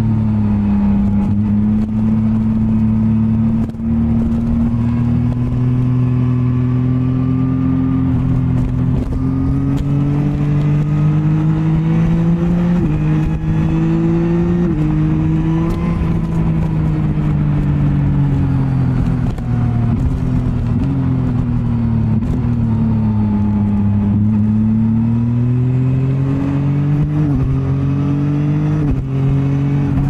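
Yamaha MT-09 SP's inline three-cylinder engine heard on board at steady riding speed. Its note rises and falls slowly with the throttle, with a few brief dips in pitch along the way.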